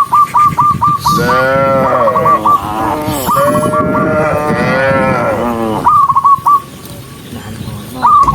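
Cattle mooing: two long, drawn-out moos, one about a second in and a longer one from about three to six seconds. Runs of short, high chirps repeat several times a second between the moos.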